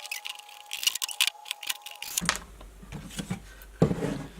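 Light clicks and taps of a wooden block being handled, with a sharper knock near the end.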